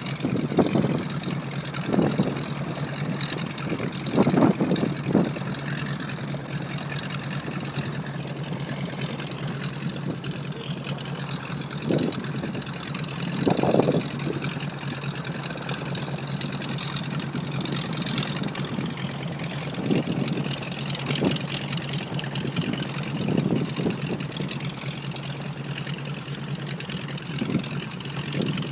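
North American T-6 Texan's nine-cylinder Pratt & Whitney R-1340 radial engine idling steadily on the ground, with short low surges in the drone every few seconds.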